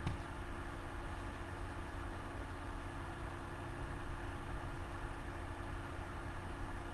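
Steady low mechanical hum with a faint hiss, the background noise of the room, with a brief click at the very start.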